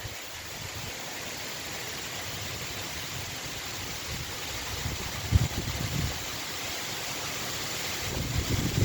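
Steady rain hiss. Brief low rumbles come about five seconds in and again near the end.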